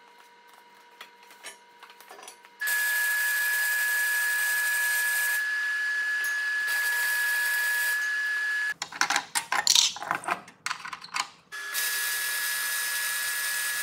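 MIG welding on a steel square-tube frame: a steady hiss of the arc with a high steady tone. The first run starts about two and a half seconds in and lasts about six seconds, and a second starts near the end. Between the two runs come a few seconds of short, irregular sounds.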